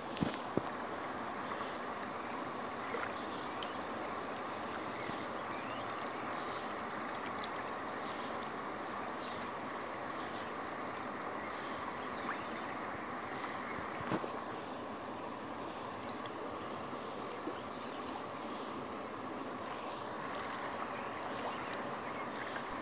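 Steady riverside ambience: a constant rushing of flowing water with insects singing in several steady high-pitched tones over it, and a couple of light knocks.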